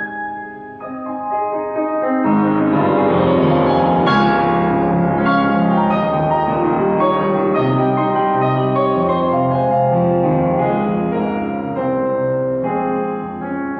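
Steinway & Sons K-52 upright piano being played: a lighter passage that swells into full, dense chords about two seconds in, easing off a little near the end.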